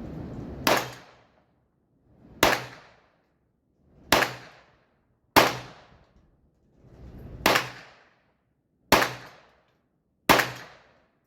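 Seven single shots from a Ruger Mark I .22 LR semi-automatic pistol, fired one at a time at an unhurried pace, roughly one every second and a half, each a sharp crack with a short fading tail.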